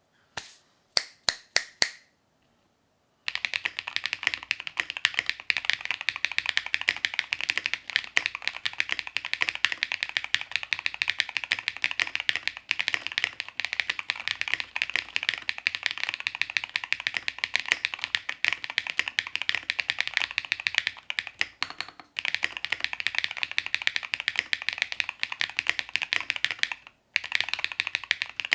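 Mechanical keyboard fitted with Keygeek Ding Ding linear switches being typed on: a few separate keystrokes first, then fast continuous typing with two short pauses, the second near the end. Each keystroke gives a high-pitched, crisp clack as the switch bottoms out on its hard fiberglass-filled bottom housing.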